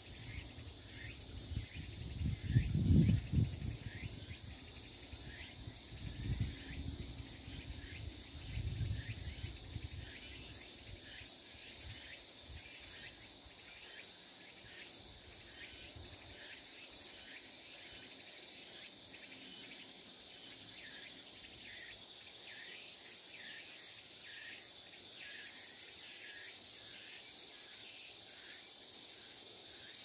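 Insects calling steadily in the late-summer countryside: a continuous high shrill with short calls repeating about twice a second. Low gusts of wind rumble on the microphone during the first ten seconds, loudest about three seconds in.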